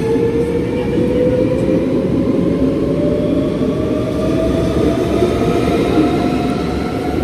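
NS double-deck electric train pulling out along the platform, its traction motors whining in several tones that rise steadily in pitch as it speeds up, over a continuous rumble of wheels on rail.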